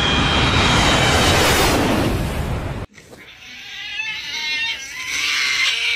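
A loud rushing roar with a faint high whine cuts off suddenly about three seconds in. A cat follows, meowing in long cries that bend up and down in pitch.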